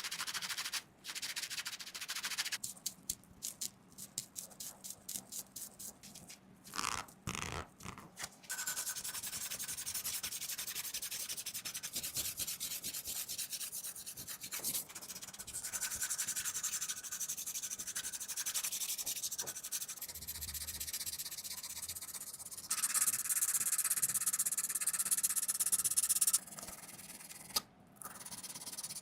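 Abrasive sanding on the knife's metal. It starts as a run of quick short strokes, then settles into steady continuous rubbing that gets louder for a few seconds near the end.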